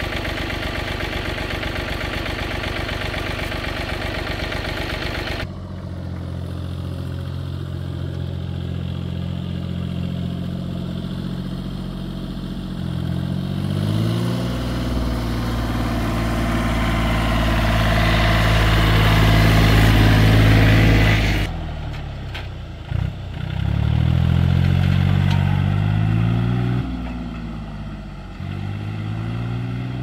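A farm machine's engine running and revving up and easing off several times, its pitch rising and falling. The sound changes abruptly about five seconds in and again about twenty seconds in.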